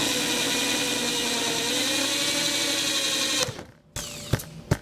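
Electric drill running at speed, boring a small pilot hole through a taped plexiglass (acrylic) sheet. Its whine stays steady, then dies away about three and a half seconds in, followed by two sharp knocks.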